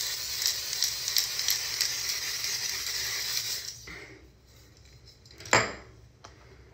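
Face spray misting continuously onto the face as a steady, crackly hiss that stops about four seconds in. A short sharp sound follows about a second and a half later.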